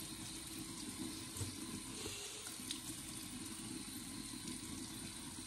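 Water running steadily from a tap into a sink, with a few faint knocks of things being handled in it.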